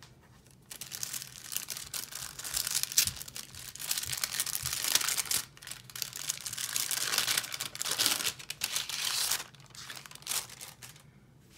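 Paper kit pieces rustling and crinkling as they are handled and pulled apart; they are stuck together. The noise comes in irregular bursts and dies away about two seconds before the end.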